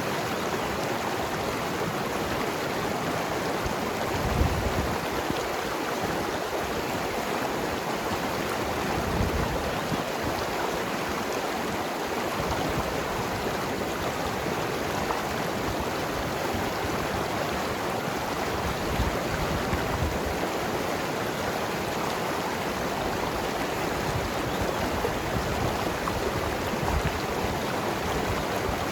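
Mountain river flowing and tumbling over rocks: a steady rushing of water with gurgling, and a few brief low rumbles of surging water.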